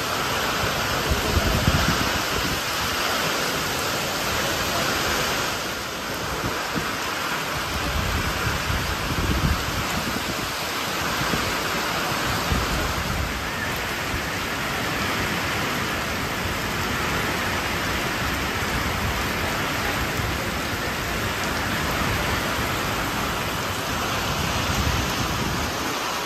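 Heavy monsoon rain pouring steadily, with gusts of wind rumbling on the microphone now and then.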